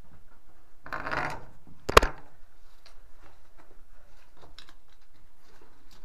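Climbing and handling noise in a concrete bunker: a brief scuffing scrape about a second in, then one sharp knock about two seconds in, followed by scattered faint clicks.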